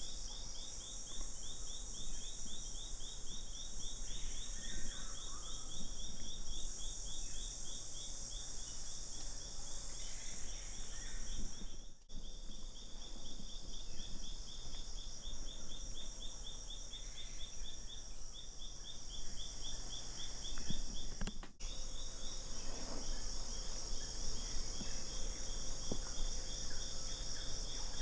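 Amazon rainforest insect chorus: several high-pitched trills layered together, one of them pulsing rapidly, with faint bird calls now and then. The sound drops out briefly twice.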